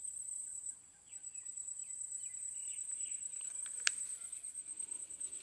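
Insects chirring in a steady high-pitched drone, with a few faint bird chirps in the middle and one short sharp chirp about four seconds in.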